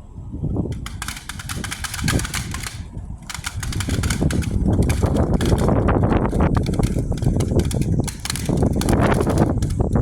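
Blizzard wind gusting on the microphone, a heavy low rush with crackling, growing louder over the first four seconds.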